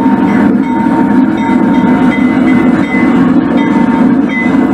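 HO scale model diesel locomotive's engine sound, a steady loud rumble, with short high tones scattered through it.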